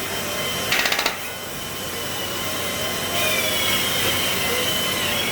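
A brief rapid rattle about a second in, typical of a plastic insertion tool being pushed along the lip of a sliding door's edge, over steady workshop noise with a faint high whine from about three seconds in.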